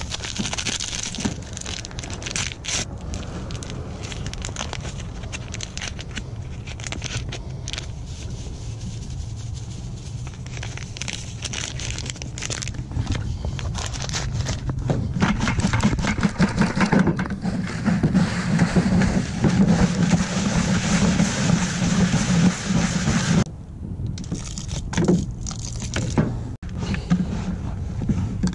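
Hands making pack bait in a plastic bucket: a paper packet and box being opened and rustled, dry breadcrumbs and Jello powder poured and scraped around the bucket, with many small crackles and scrapes. A steady low rumble runs underneath, grows louder through the middle and stops abruptly about three-quarters of the way in.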